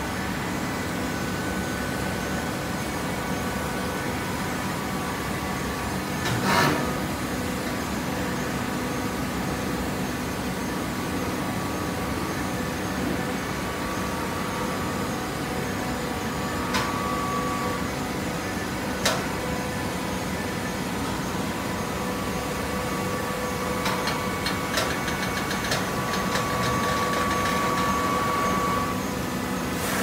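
Horizontal automatic hydraulic baler running: a steady machine hum, with a short loud rush about six seconds in, a few sharp clicks, and a steady high whine with clicking near the end.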